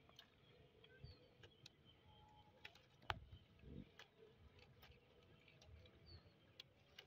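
Faint clicks, snaps and rustling of goats browsing on a cut thorny bush branch, nibbling leaves and twigs, with one sharper snap about three seconds in. A few faint bird chirps.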